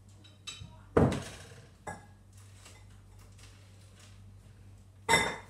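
Crockery clattering as dishes are moved about: a loud clatter with a ringing tail about a second in, another near the end, and a few lighter knocks between.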